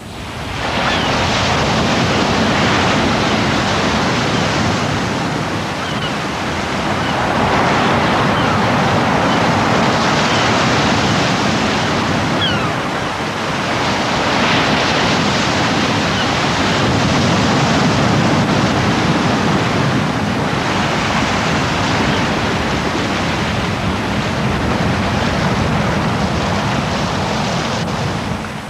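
Sea waves breaking and washing on a shore, a loud rushing surf that swells and eases every few seconds.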